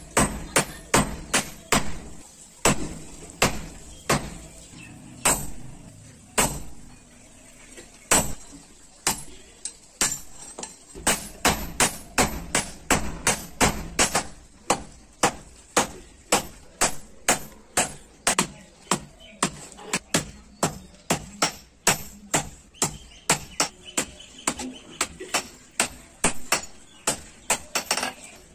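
A blacksmith's hand hammer forging a red-hot billhook blade on a small anvil. The blows are sharp and ringing, spaced unevenly for the first ten seconds or so, then settle into a steady run of about two to three strikes a second.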